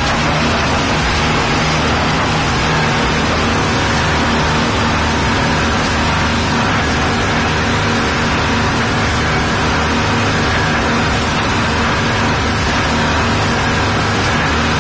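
Speedboat engines running at speed, a steady loud drone with a low hum, mixed with rushing wind and water spray from the hull cutting through the sea, heard from inside the passenger cabin.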